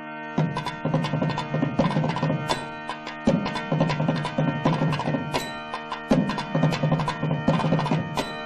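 Instrumental music: drum strokes in a regular beat over held notes.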